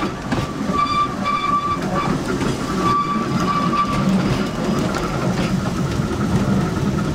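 Narrow-gauge electric tram running along the rails, heard from the driver's cab as a steady rumble of wheels and running gear, with a high squeal heard twice, about a second in and again about three seconds in.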